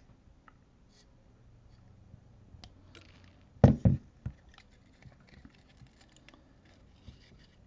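Hands unwrapping a length of 30-gauge N80 nichrome wire and handling small flush cutters: faint rustling and light ticks, with two dull knocks in quick succession a little past halfway, the loudest sounds.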